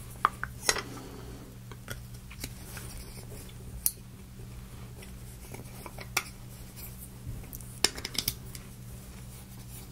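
Scattered small clicks and taps of a metal clockwork music-box movement and its screws being handled and fitted onto a thin plywood plate, with a small cluster of clicks near the end. A faint steady low hum sits underneath.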